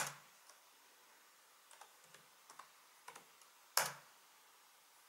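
Laptop keyboard being typed on: about a dozen unhurried, irregular keystrokes as a terminal command is typed, with a sharper, louder key press a little before the end as Enter is struck.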